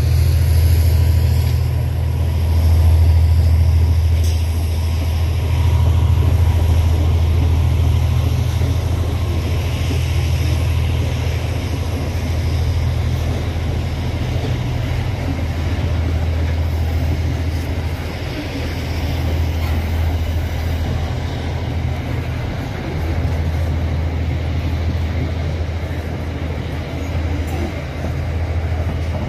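A train running past with a steady low rumble over a constant rushing noise.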